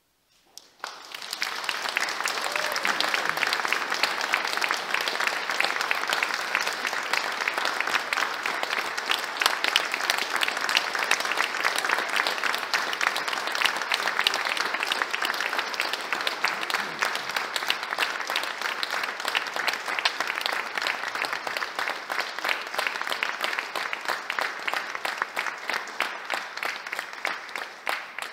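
Concert audience applauding steadily, a dense mass of hand clapping that starts about a second in.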